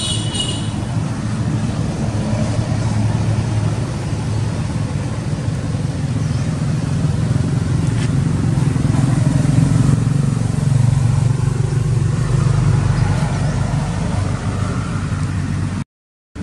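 A steady low engine rumble, like a motor vehicle running, that swells a little through the middle and cuts out abruptly near the end.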